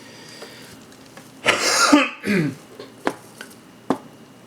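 A man clears his throat once, a rough burst ending in a short falling grunt, followed by two light clicks.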